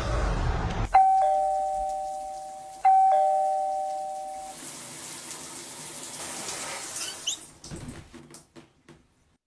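Street traffic noise cuts off about a second in. A video doorbell chime then rings a two-note ding-dong, high then low, twice in a row, each ring dying away slowly.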